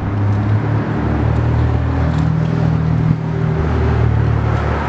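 Low, steady drone of a motor vehicle engine running nearby, loud throughout.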